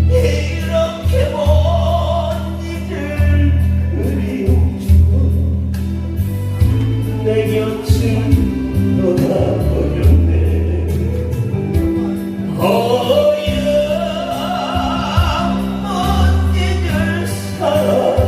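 Music: a Korean trot-style song with a wavering sung melody over a backing track with a steady bass line.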